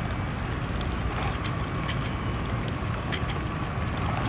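Paddle wheels on a radio-controlled car churning and splashing through water. A faint steady whine comes from its electric motor, and wind rumbles on the microphone.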